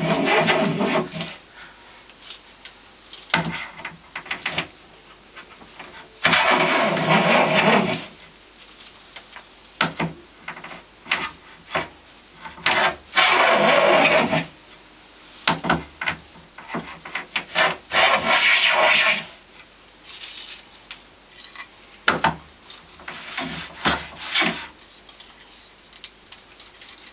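Stanley No. 72 chamfer plane cutting a chamfer along the edge of a wooden table leg. Four long strokes of a second or two each, with shorter strokes and sharp knocks as the plane is lifted and set back between them.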